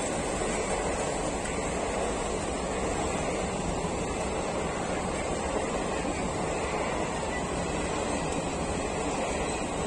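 Steady rushing rumble of a rake of high-capacity parcel vans rolling past at speed over a level crossing.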